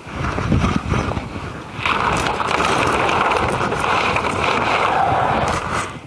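A gust of wind buffeting the microphone, starting suddenly, with plastic pond liner sheeting rustling through most of it.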